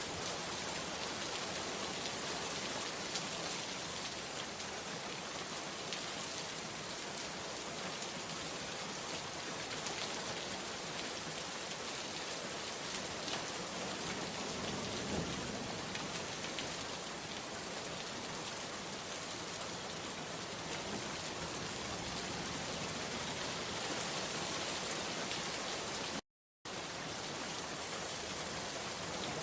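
Steady rain falling, with individual drops pattering on a surface throughout. Near the end it cuts out completely for a split second, then resumes.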